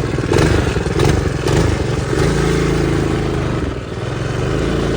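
Mini bike's Predator 212 single-cylinder engine running under throttle. It is uneven, with a few clattering knocks in the first second and a half, then runs steadier from about two seconds in with a brief dip near four seconds.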